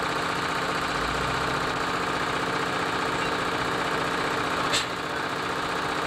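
Utility boom truck's engine idling steadily, with a single short sharp click a little before the end.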